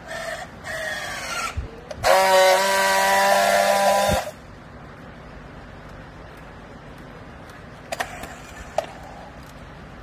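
Battery-powered handheld strapping tool working on plastic strap around a bale. Its motor whines up in pitch as it tensions the strap, then it gives a loud steady buzz for about two seconds, the friction weld sealing the strap, which stops abruptly. Two sharp clicks come near the end.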